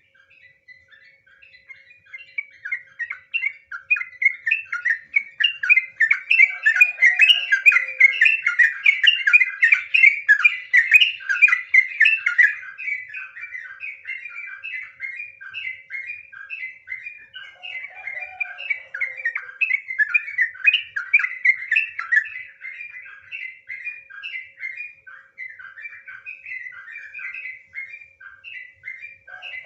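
Yellow-vented bulbul (trucukan) singing a long, rapid, unbroken run of bubbly chattering notes. It is loudest in the first half and grows softer after about twelve seconds, with a couple of lower down-slurred notes at about seven and eighteen seconds.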